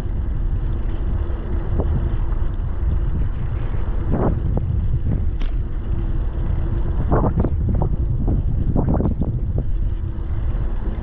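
Wind buffeting the microphone of a bike-mounted action camera while riding, over a steady low rumble of rolling, with a faint steady hum. A few brief knocks and rattles come about four seconds in and again between seven and nine seconds.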